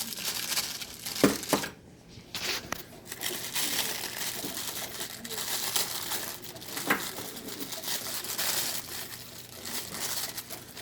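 Packaging crinkling and rustling as parts are unpacked from a box, with a couple of sharp clicks.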